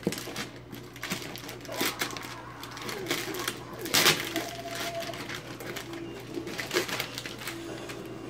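Christmas wrapping paper being torn and crinkled as a present is unwrapped, in irregular rips and rustles, the loudest rip about four seconds in.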